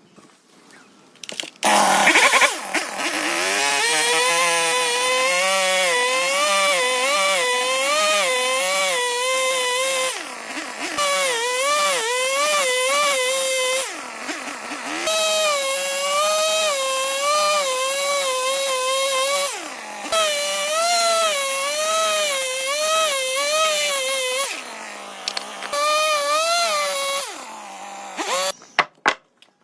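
Electric power tool running and cutting wood, its motor whine wavering in pitch under load, easing off and picking up again several times before it stops near the end.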